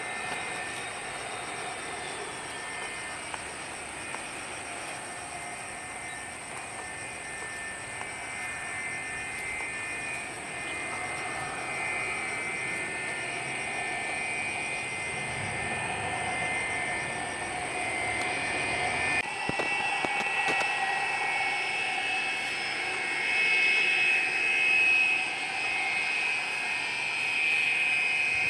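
McDonnell Douglas MD-83's rear-mounted Pratt & Whitney JT8D turbofans whining steadily as the jet lands and rolls out. About two-thirds in, the sound cuts to another MD-83 taxiing on idle thrust, its whine swelling louder near the end.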